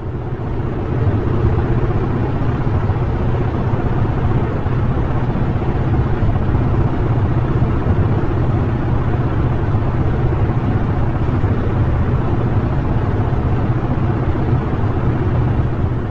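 A space sonification playing a steady, dense low rumble with a hiss above it, like a constant roar of noise.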